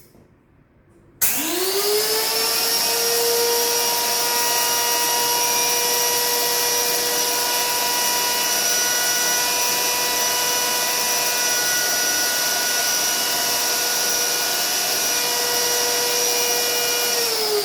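High-speed electric spice grinder grinding coffee beans. Its motor starts abruptly about a second in, the whine rises quickly to a steady high pitch, and it begins to wind down in pitch near the end.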